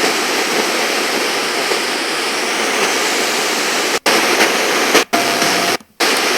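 Radio static hissing steadily while a radio is tuned, then from about two-thirds through it cuts out and back in several times, with a faint tone between drops, as the dial passes between stations.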